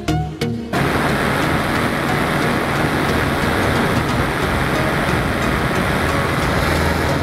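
Music with a beat for the first moment, then a sudden cut to the steady drone of a paramotor's engine and propeller, with wind rushing over the microphone, heard from the pilot's seat in flight.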